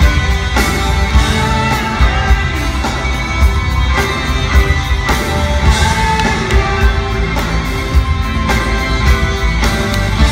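Live rock band playing at full volume through an arena PA: drum kit keeping a steady beat under electric guitar, bass and keyboards.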